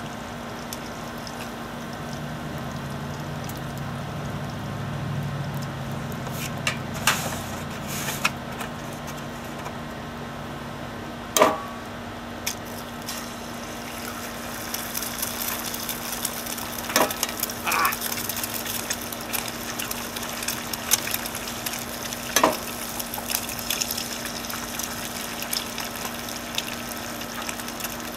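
Bacon and then eggs sizzling in a cast iron skillet over a wood-fired rocket stove, the sizzle growing busier about halfway through as the eggs go in. A few sharp knocks and taps against the pan, the loudest about eleven seconds in.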